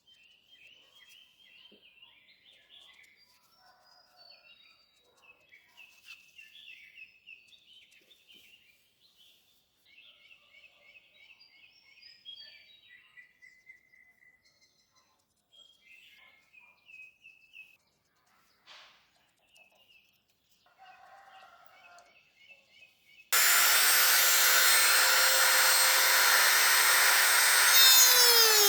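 Faint bird chirps for most of the stretch, then an electric power tool starts abruptly near the end and runs loud and steady with a whining tone, its pitch dipping at the very end.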